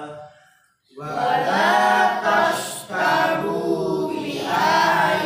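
A group of voices chanting a Quran verse together in unison in melodic tajwid style, coming in about a second after a short pause; a single voice's long held note dies away just before.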